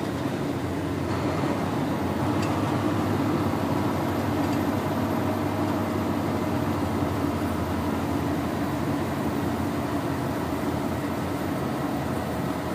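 Steady drone of a Volvo VNL 670 semi truck's diesel engine and tyre noise on a snowy road, heard from inside the cab while driving at speed.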